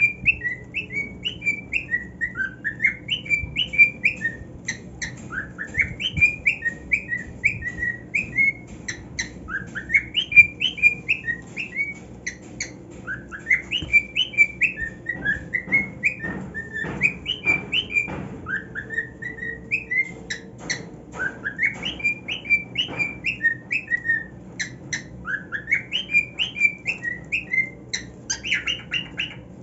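Male cockatiel singing: a warbling whistled song in repeated phrases, each opening with a rising glide and running into a string of short up-and-down notes, every couple of seconds. A run of sharp clicks comes about halfway through.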